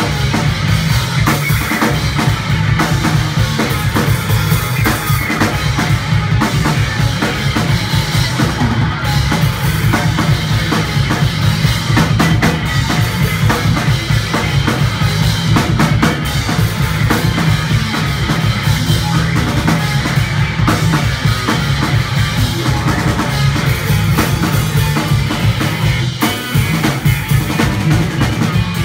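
Live punk rock band playing loudly: a drum kit out front, with bass drum and snare, over electric guitar and bass guitar.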